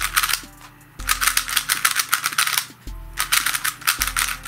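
DaYan 7 XiangYun 3x3 speedcube being turned fast: rapid, fairly noisy clicking and clacking of its plastic layers, in runs of quick turns separated by brief pauses.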